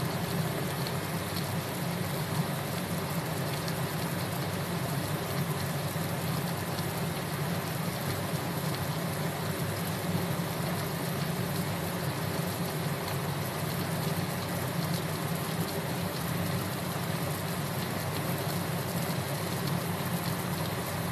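Chicken adobo boiling hard in a pot, a steady bubbling sizzle as the liquid from the chicken cooks off, over a steady low hum.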